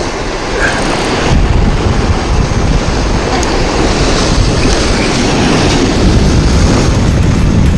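Waves breaking and washing over rocks, with wind buffeting the microphone; the wind rumble grows heavier about a second in.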